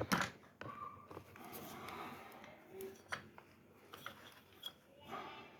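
Faint handling noises: a few scattered small clicks and light rustling, as of hands working with the shoe and small tools.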